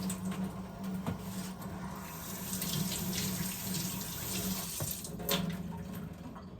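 Kitchen tap running water into a sink, with a few light knocks of handling.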